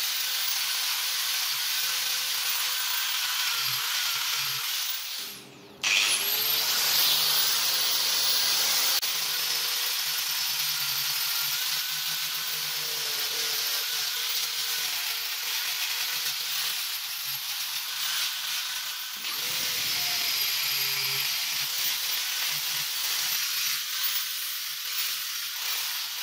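Angle grinder fitted with a sanding disc running at a steady high whine while sanding a wooden axe handle. The sound dies away about five seconds in and comes back with the whine rising, and the whine dips briefly near the end under pressure.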